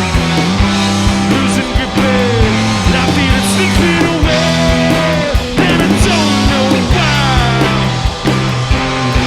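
Rock band playing: electric guitar over bass and drums, with regular drum hits and guitar notes sliding down in pitch several times.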